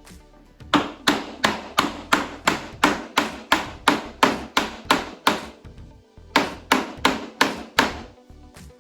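Hammer blows on the wooden workbench frame, quick and regular at about four a second, in two runs with a pause of about a second between them.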